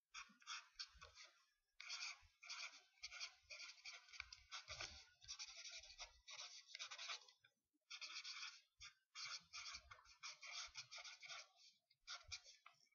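Faint scratching of a felt-tip Sharpie marker on paper as words are handwritten, in runs of quick strokes with a brief pause a little past halfway.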